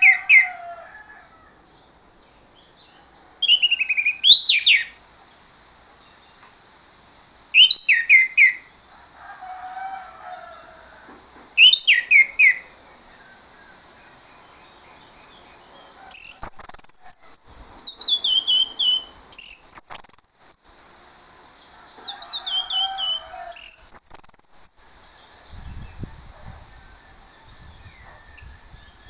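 Orange-headed thrush (anis merah) singing loud phrases of falling whistled notes, one every few seconds. Past the middle the song turns into a denser run of high notes.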